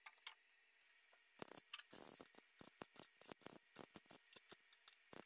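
MIG welder laying a string of short tack welds on thin car body sheet metal, a quick run of irregular crackling bursts starting about a second and a half in, faint overall.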